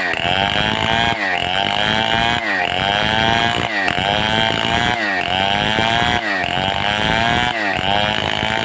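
Stihl 070 two-stroke chainsaw running hard under load while sawing timber. Its pitch dips and recovers in a regular cycle, a little more than once a second.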